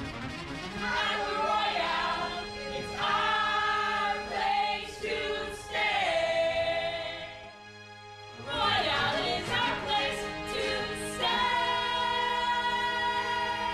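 Voices singing a self-written commercial jingle over musical accompaniment. There is a brief pause about halfway through, then a long held final note that slides down at the end.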